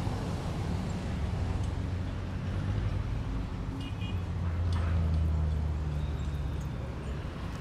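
Road traffic going by: a steady low rumble of vehicle engines that swells to its loudest about halfway through as a vehicle passes close, then eases off.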